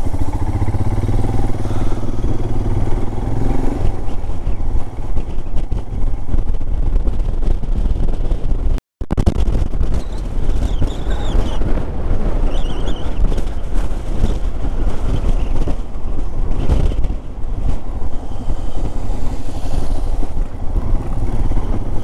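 Royal Enfield Himalayan's single-cylinder engine running steadily as the motorcycle is ridden, with a brief break in the sound about nine seconds in.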